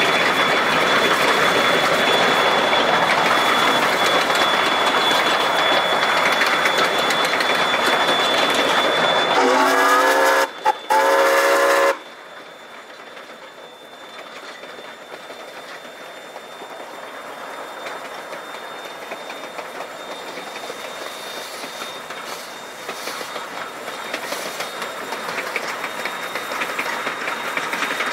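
Ex-South Australian Railways RX-class steam locomotive No. 207 running with a loud, steady rush, then its steam whistle sounds about ten seconds in, two blasts with a short break between them. The sound then drops sharply and the locomotive's running noise builds steadily as it works closer.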